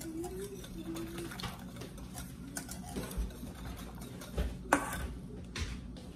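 Wire whisk stirring hot chocolate in a stainless steel saucepan, its wires rapidly clicking and scraping against the pot, with one sharper clink of metal on metal about three-quarters of the way through.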